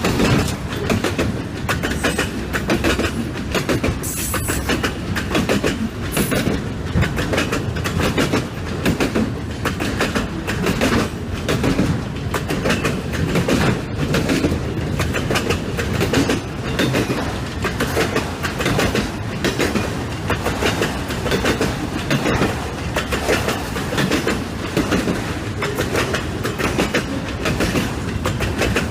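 Auto-rack freight cars rolling past at track side, their wheels clattering in a steady rhythmic clickety-clack, with a faint squeal of wheels on rail.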